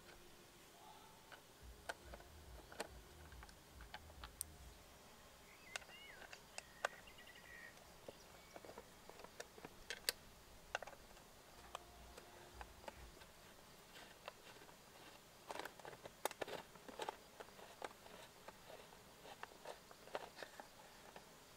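Faint, scattered clicks and taps of a metal hex key working the small bolts of a motorcycle's plastic fairing panels, irregular rather than rhythmic, with the sharpest click about ten seconds in and a cluster around sixteen seconds.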